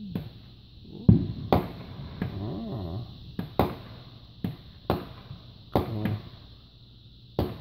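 Consumer aerial fireworks bursting overhead: a run of about eight sharp bangs at uneven intervals of half a second to a second and a half, the loudest about a second in.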